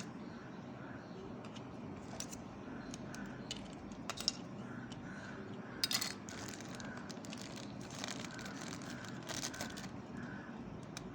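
Scattered sharp clicks and short plastic rattles of a small electric beard trimmer and its parts being handled. The loudest clicks come about four and six seconds in.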